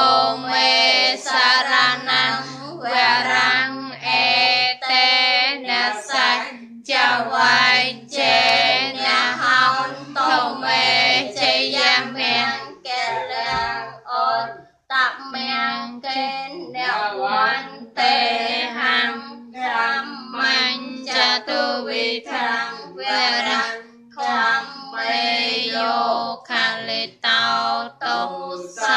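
A voice singing a Buddhist devotional chant in long melodic phrases over steady low tones, with a short break about halfway through.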